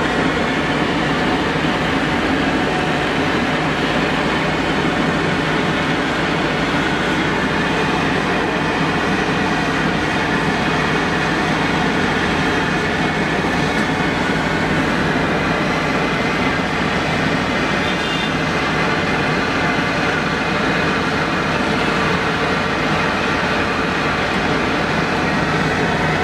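Potato fries deep-frying in a large well fryer of hot oil: a steady, dense sizzle and bubbling.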